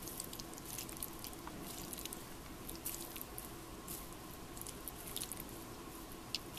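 Chopsticks working through a stir-fry on a plate: faint, irregular light clicks and soft rustling over a low steady room hum.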